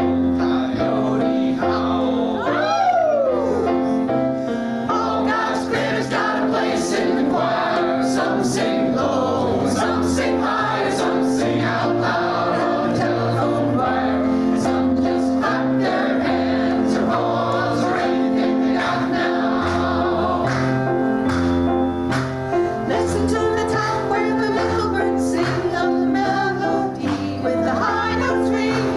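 Music: voices singing over instrumental accompaniment, with a bass line that moves from note to note under held chords.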